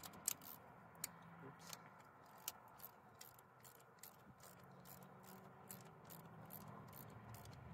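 Faint, irregular clicking of a ratchet wrench, a few clicks a second, as the mounting nuts of a diesel injection pump are tightened, with a faint low hum behind it.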